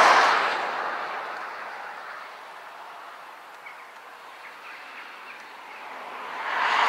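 Wind gusting across the microphone and the reeds: loudest at the start, easing off, then surging again near the end. A few faint bird chirps come in the lull.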